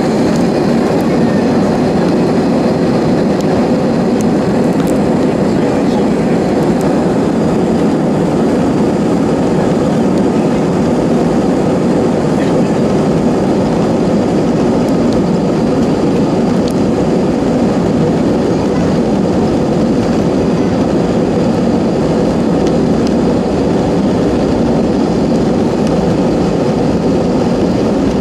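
Steady cabin noise inside a jet airliner taxiing on the ground: the engines run at taxi power under a rushing hum, with a faint high-pitched whine.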